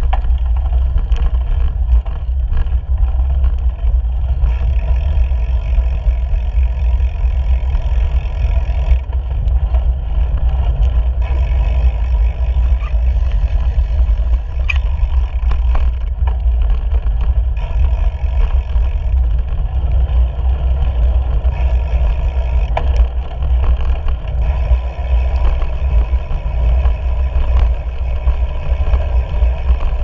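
Wind buffeting the microphone of a camera on a moving bicycle, a steady heavy low rumble, mixed with tyre and road noise and scattered clicks and rattles from bumps in the road.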